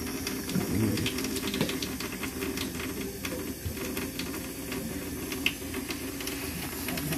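Kitchen tap running into a stainless steel sink in a steady hiss, with scattered light clicks and knocks of things being handled on the counter.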